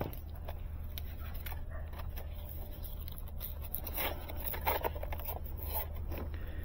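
Light scraping and clicking of hands handling a plastic fiber-optic splice tray and wrapping a foam strap around it, busiest about two-thirds of the way in, over a steady low rumble.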